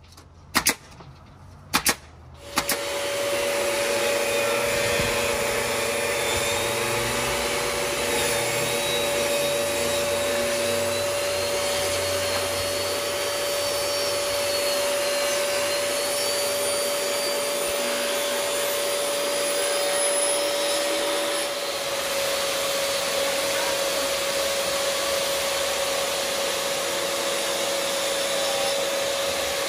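Two sharp shots of a nail gun driving nails into wood boards, then the steady whine of a wet/dry shop vacuum running as dust collection on a jobsite table saw, with the saw running as boards are cut.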